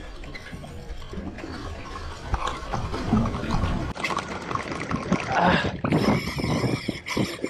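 Water sloshing and slapping against the hull of a drifting boat, with scattered clicks and knocks from a spinning reel being handled. About six seconds in, a harsher, steadier hiss sets in for about a second.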